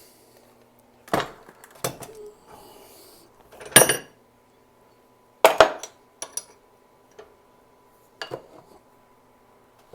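Metal hand tools clinking and knocking on a carburetor as a punch is set in place and the part is worked: about six separate sharp strikes, the loudest about four and five and a half seconds in.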